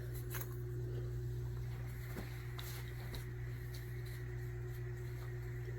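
Faint handling of a fabric-wrapped fly rod roll: a few light clicks and rustles, over a steady low electrical hum with a faint steady tone.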